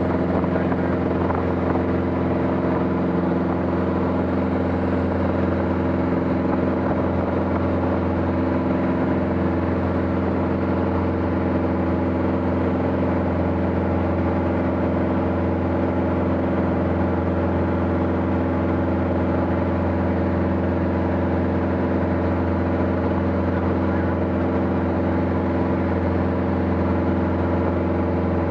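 Light aircraft engine running with a steady, unchanging drone, as heard in flight.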